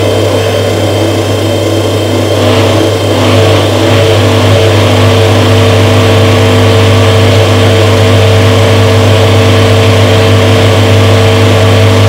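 Front-loading washing machine running with laundry turning in the drum: a steady motor hum, with a brief swish about three seconds in, after which it runs a little louder.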